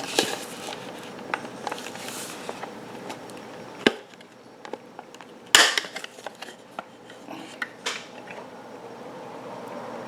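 Plastic clicks, knocks and scraping from working a refrigerator evaporator fan motor assembly free of its hook-type retaining clip by hand. There is a sharp knock about four seconds in and a louder scrape a second and a half later.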